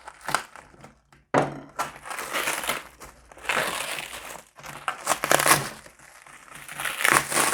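Plastic parcel packaging crinkling and crumpling in irregular handfuls as it is pulled open and unwrapped, with a brief pause about a second in.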